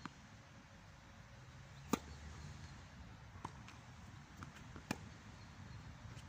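Tennis ball struck back and forth with rackets: sharp pops about a second and a half apart, the loudest about two seconds in, with fainter ticks between them from the ball bouncing on the hard court.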